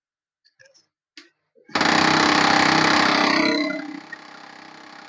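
HP LaserJet 1020 laser printer powering on: a few light clicks, then about two seconds in its gear drive starts with a loud mechanical noise with a fast rattle, which eases after about two seconds to a quieter steady running. The noise comes from a slipping clutch gear in the paper pickup assembly.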